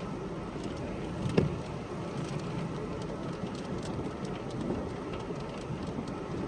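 Steady rushing noise of wind and rain in a storm, with one brief knock about a second and a half in.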